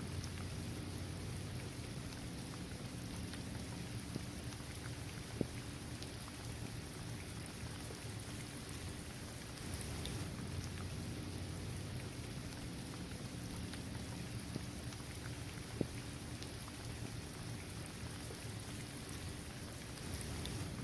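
Steady rain falling on a hard court surface and on trees and grass, with scattered louder individual drop hits.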